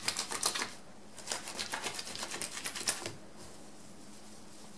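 Hands rubbing a wet, soapy wool felt cone against bubble wrap in quick strokes, about six or seven a second, to felt it. There is a short pause about a second in, and the rubbing stops about three seconds in.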